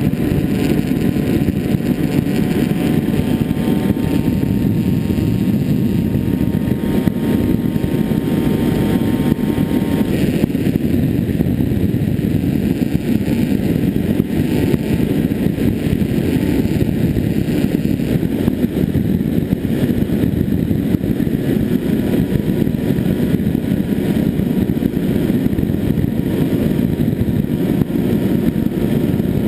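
Onboard sound of a Finwing Penguin RC plane in flight: a steady rush of wind over the microphone, with the faint whine of its electric motor and propeller. The whine fades about ten seconds in.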